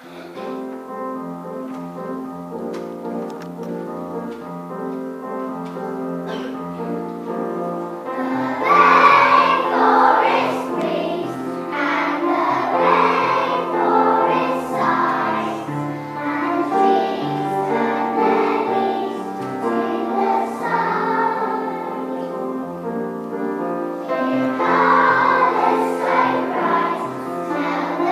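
A children's song with instrumental accompaniment: the music starts, then a group of young children join in singing from about eight seconds in, and the singing goes on.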